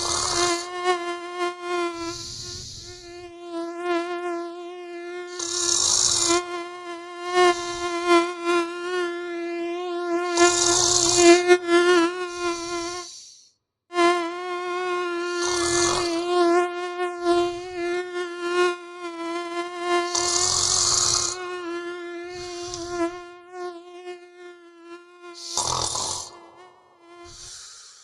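Mosquito whine, a steady, slightly wavering buzz that drops out for about a second midway and stops near the end. Under it a person snores, one broad breathy snore every few seconds.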